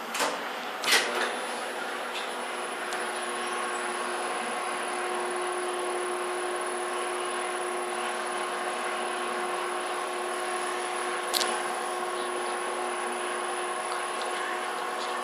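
Hyundai Luxen LXVF1 elevator's synchronous gearless traction motor and sheave running, a steady hum with several steady whining tones that strengthen a few seconds in. Sharp clicks come near the start, the loudest about a second in, and another comes around eleven seconds.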